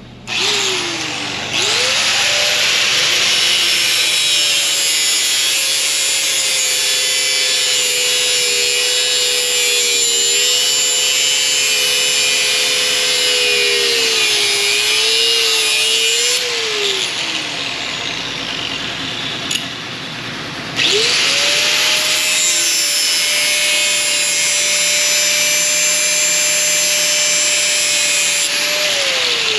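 Electric power tool motor spinning up and making two long cuts, its pitch sagging under load while the cutting gives off a dense hiss; it winds down between the cuts and spins up again about two-thirds of the way in.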